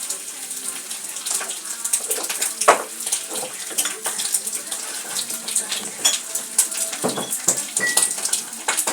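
Water running and splashing, with many irregular spatters.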